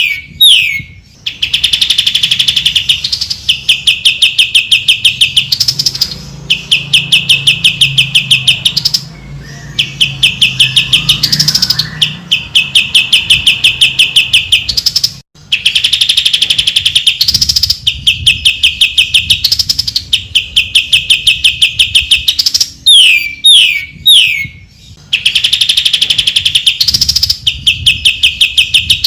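Cucak ijo, a leafbird, singing in long rapid trills of repeated high notes, phrases of a few seconds each broken by short pauses, with a few quick downward-sweeping notes a little after the middle.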